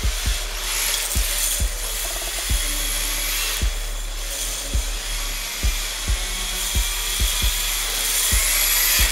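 1/10 MST RMX 2.0 RC drift car sliding on hard plastic drift tires over a concrete floor: a steady hiss of the tires scrubbing, with a high electric-motor whine that rises near the end. Irregular dull thuds sound underneath.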